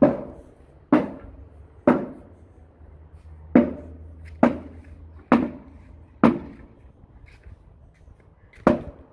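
Footsteps on granite stair treads and paving: about eight sharp steps at a walking pace, with a longer pause after the third and another before the last.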